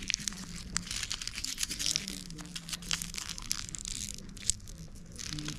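Crinkling and crackling of a chocolate wrapper being handled, a dense run of small irregular sharp clicks.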